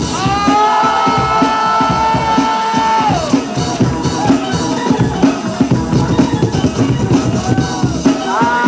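DJ's hip-hop break music with a steady beat. A long held note at the start slides down and stops about three seconds in, and a shorter one comes in near the end.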